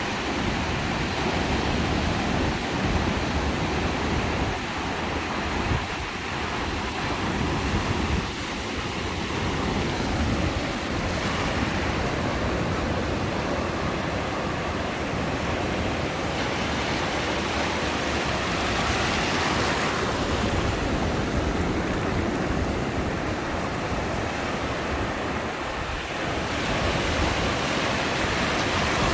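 Ocean surf on a beach: a continuous wash of waves that swells louder several times as waves break.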